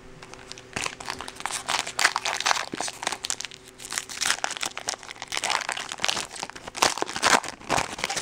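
Foil wrapper of a 2013 Bowman baseball card pack crinkling and tearing as it is ripped open by hand, in irregular bursts of crackling that start about a second in. A faint steady hum sits underneath.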